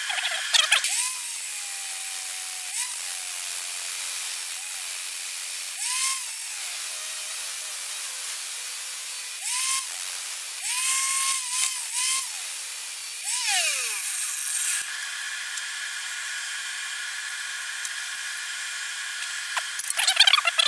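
Bandsaw motor whining in several short runs over a steady hiss; the whine sags in pitch during the longer runs and falls away quickly when it stops, about 14 seconds in.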